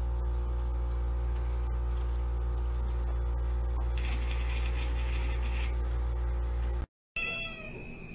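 A domestic cat meowing once, a drawn-out call about four seconds in, over a steady low hum. Near the end the sound drops out briefly and a steady high tone begins.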